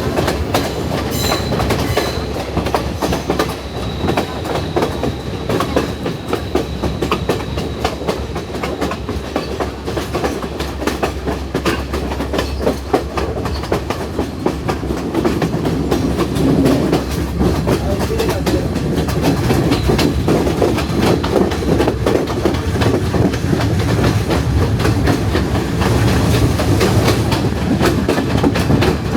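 Passenger train running along the line, heard from on board: a steady rumble of the carriage with wheels clattering over the rail joints.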